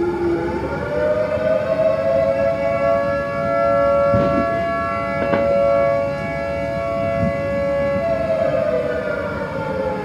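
Federal Signal 2T22 two-tone air raid siren sounding the attack signal, heavily reverberant with neighbourhood echo added by convolution with a firework impulse response. The two tones rise over the first second, hold steady while swelling and fading in loudness, then wind down near the end. A few faint cracks come in the middle.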